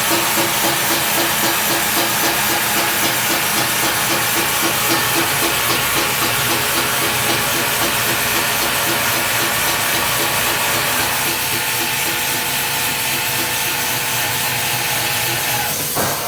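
Hofer case clamp running its automatic clamping cycle: the small gear reduction motors drive the beams in on the box with a fast pulsing drone that fades about two-thirds of the way through, under a steady loud hiss of compressed air leaking from the clamp's air lines.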